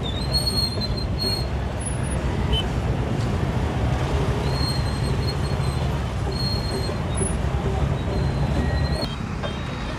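Slow, crowded road traffic: motorcycle and car engines running steadily with a low rumble, and a few short high-pitched beeps now and then. The rumble eases off about nine seconds in.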